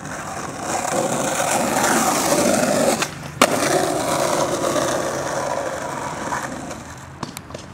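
Skateboard wheels rolling on asphalt. The rolling stops for a moment about three seconds in, then the board comes down on the road with one sharp, loud clack: a missed flip trick, the board landing upside down. Rolling noise goes on afterwards and slowly fades.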